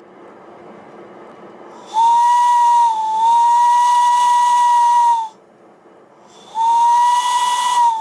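Home-made steam whistle on a model Stirling Single locomotive blowing under steam. It was enlarged from a 5/8-inch whistle with an extended, thin-walled resonance chamber. Two long blasts of a single steady tone with steam hiss, each about three seconds, a little over a second apart; the first dips briefly in pitch partway through.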